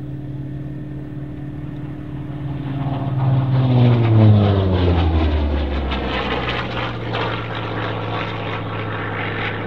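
Hawker Sea Fury's radial engine and propeller in a fast low fly-past: the engine note grows louder as it approaches, drops in pitch as it passes about four seconds in, then holds a steadier, lower drone as it climbs away.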